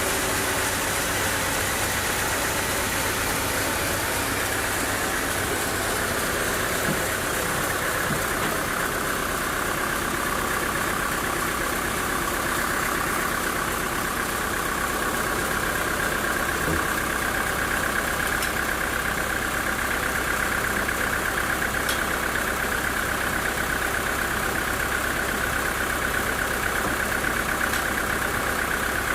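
Engine-driven sawmill machinery running steadily. Its high whine slides lower about ten seconds in, then holds.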